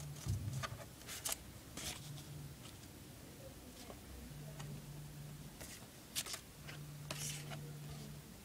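Paper label stickers being handled and slid over one another on a table: several short paper rustles and scrapes.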